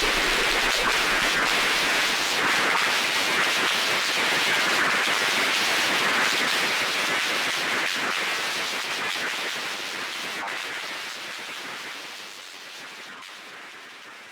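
Synthesizer noise patch producing harsh, crackling static-like noise centred in the upper mids. It holds steady for about eight seconds, then fades out gradually.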